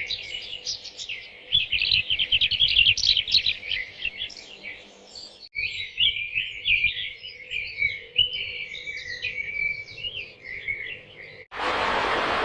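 Small birds chirping and twittering rapidly, in two stretches with a sharp cut between them about halfway. About a second before the end the birdsong cuts off and a steady, even hiss takes over.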